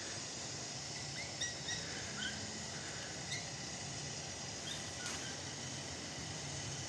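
Quiet woodland ambience: a steady hiss over a faint low hum, with a few short, high chirps of small birds scattered through the first five seconds.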